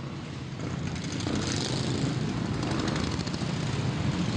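Several racing lawn mower engines running together, growing louder.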